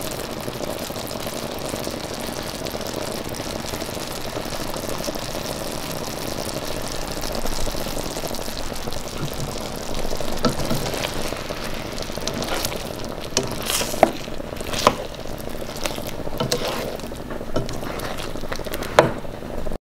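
Honey garlic sauce bubbling and sizzling around chicken pieces in a skillet, a steady hiss. From about halfway through, a spatula scrapes and knocks against the pan several times.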